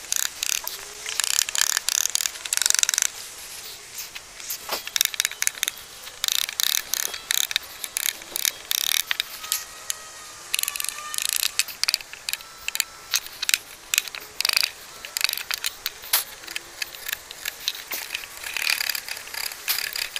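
Bench chisel paring a notch across softwood 4x2, a crackly scraping of wood fibres being sliced, in repeated bunches of short hand strokes.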